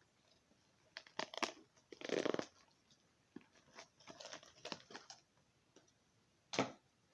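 Crinkling, crunching and tearing of packaging being handled and opened, in short irregular bursts, the loudest about two seconds in, with one sharp click near the end.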